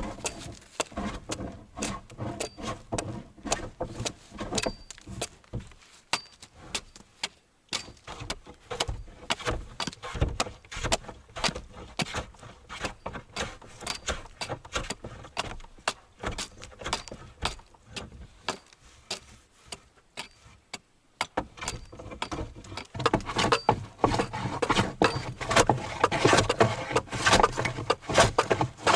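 Hand tools working a wooden board as it is fitted for a workbench top: a run of quick scraping strokes and knocks on wood, growing louder and busier near the end.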